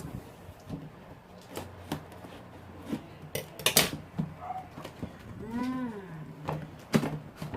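Handling of a taped cardboard box being opened: rustling with sharp clicks and crackles. About five and a half seconds in, a single drawn-out call rises and then falls in pitch.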